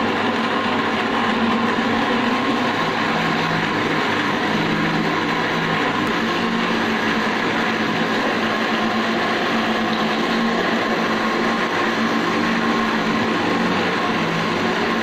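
National electric blender running steadily at full speed, blending mango pulp into a thick ice cream mixture in its jar, with a steady motor hum and whine.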